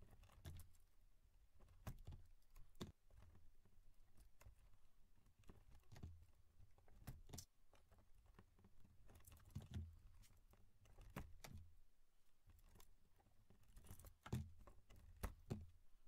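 Faint, irregular small clicks and rustles of wires and plastic butt connectors being handled and pushed together while splicing a car wiring harness.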